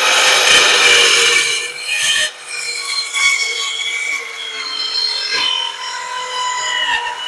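Corded Bauer compact circular saw with a 4-inch blade cutting a bevel through a plywood sheet: a steady motor whine over the blade rasping through the wood, with a brief dip about two seconds in.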